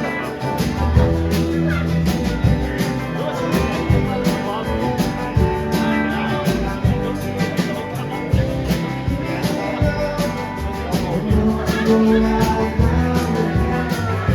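Live band playing a song: drums keep a steady beat under bass guitar and guitar.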